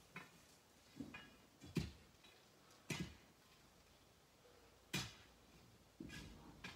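Tools striking rock: about seven sharp, short knocks at an uneven pace, with a pause of about two seconds in the middle.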